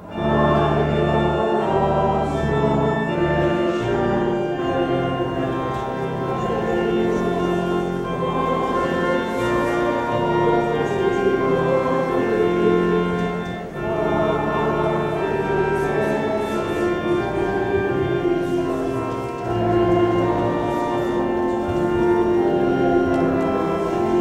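Church organ accompanying a choir and congregation singing a processional hymn, with held chords and a moving bass line.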